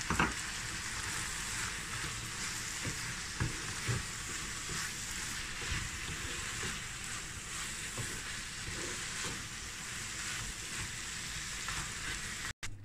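Minced chicken keema frying with a steady sizzle in a non-stick pan while being stirred with a wooden spatula, with scattered light scrapes and taps of the spatula against the pan.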